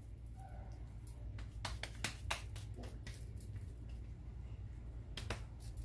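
Hands squeezing and pressing seasoned ground beef around a wooden skewer: soft wet squishes and a scatter of short sharp clicks, several about a second or two in and a couple more near the end, over a steady low hum.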